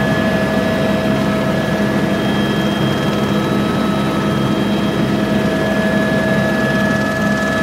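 Helicopter engine and rotors heard from inside the cabin: a loud, steady drone with a constant whine over it.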